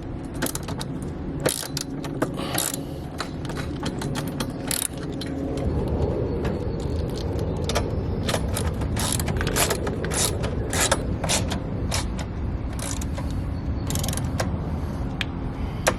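Hand tools working the crash bar bolts on a motorcycle: a ratchet wrench clicking and metal parts clinking in irregular runs, over a steady low rumble that grows louder about six seconds in.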